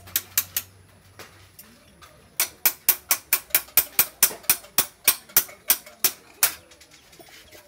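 Sharp metallic clicks from the bicycle's front wheel hub and fork as it is worked on: a few at the start, then a quick even run of about four a second for some four seconds.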